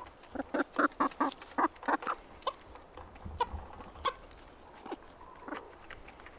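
Domestic hens clucking: a quick run of short clucks in the first two seconds, then single clucks about a second apart.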